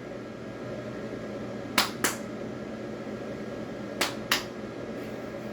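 Animated Santa figure's mechanism between phrases: a steady low hum with two pairs of sharp clicks, one pair about two seconds in and another about four seconds in.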